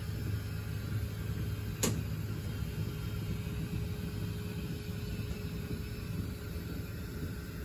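3D printer running in test mode, its motors making a steady low hum with a faint whine that stops about three quarters of the way through. A single sharp click about two seconds in.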